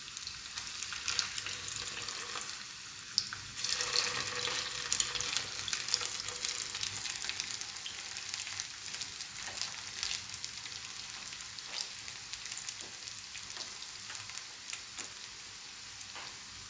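Minced chicken kababs shallow-frying in hot oil over a low flame: a steady sizzle dotted with small crackles, which gets louder about three and a half seconds in.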